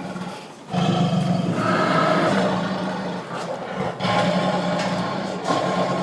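Tiger roaring and growling in long, rough, low calls: one begins just under a second in, a second follows about a second after it ends, and a third starts near the end.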